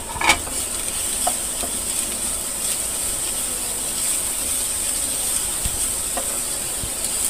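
Sliced vegetables sizzling over high heat in a nonstick pan, with a spatula stirring and scraping them and a few clicks against the pan, the sharpest about a quarter second in.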